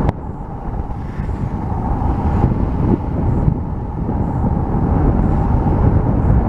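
Wind buffeting the microphone on a sailboat beam reaching under full sail in 15 to 20 knots, with the rush of 3 to 4 foot waves along the hull. A steady, low rumbling roar.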